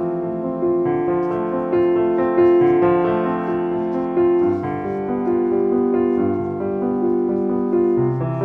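Background piano music: a gentle melody over held chords.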